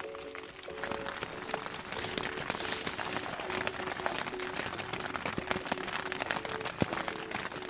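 Rain pattering on the fabric of a truck-bed tent, heard from inside as a dense, irregular patter of drops that thickens about a second in.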